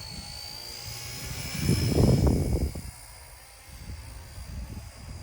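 RC Era C032 UH-1 Huey scale RC helicopter in flight, its electric motor and rotor making a steady high whine that rises slightly in pitch over the first couple of seconds. A loud low rumble swells up about a second and a half in and fades by three seconds.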